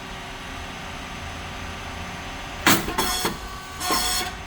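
SYP9502 puffed rice cake machine running with a steady hum. About two and a half seconds in, a sharp pop and hiss of about half a second, typical of the hot moulds opening on a puffed cake. A second hiss comes near the end.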